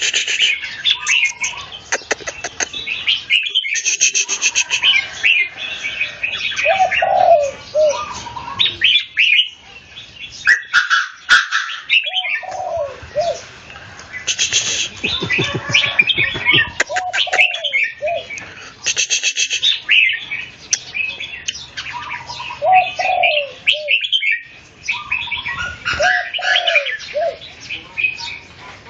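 Caged red-whiskered bulbuls singing against each other: fast, busy chirping song phrases follow one another closely, with lower hooked notes recurring throughout.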